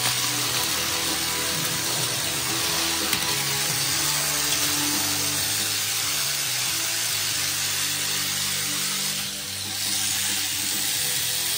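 Crush Gear toy battle machines' small electric motors and gearboxes whirring steadily as they drive and clash in a plastic arena, dipping briefly about nine seconds in.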